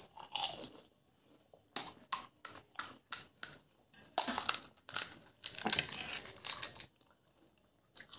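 Crisp fried pani puri shells crunching as they are cracked open and chewed: a quick run of sharp cracks about two seconds in, then longer bursts of crunching about four and six seconds in.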